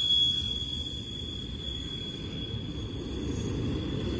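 A freight train rolling past, with a low rumble and a thin, steady, high-pitched wheel squeal that is strongest at the start and grows fainter.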